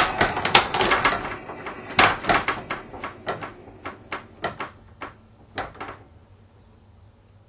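A run of sharp wooden knocks and rattles, fast and loud at first, then slowing and fading until they stop about six seconds in.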